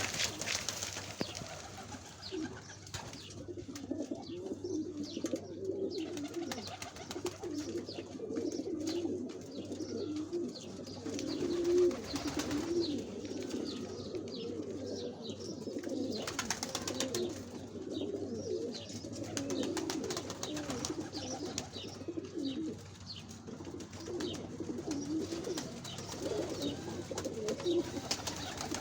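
A flock of domestic pigeons cooing continuously, many calls overlapping, with brief sharper noises now and then.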